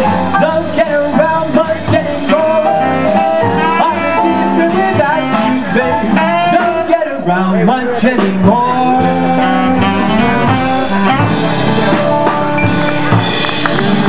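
Live jazz band playing: a saxophone carries a bending melody line over keyboard, upright bass and drums.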